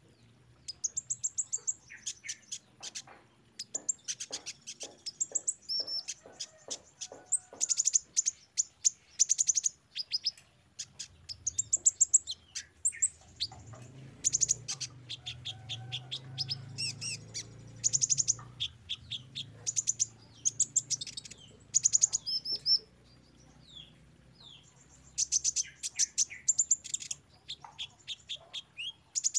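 Male kolibri ninja (Van Hasselt's sunbird) singing: rapid, very high-pitched twittering chirps and trills in bursts of a second or two, with brief pauses between. A faint low hum sits under the song in the middle of the stretch.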